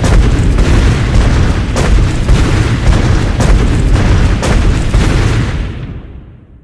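Tyrannosaurus rex sound effect: a loud, rumbling noise, heaviest in the deep low end, with several sharp cracks through it, dying away over the last second or so.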